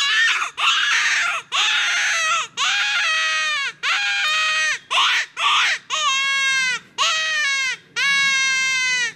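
Dogbreath Stack'em closed-reed rabbit distress hand call blown hard in a string of about a dozen loud, wailing cries, each dropping in pitch at its end. It imitates a rabbit in distress being killed, a prey-distress call used to lure coyotes.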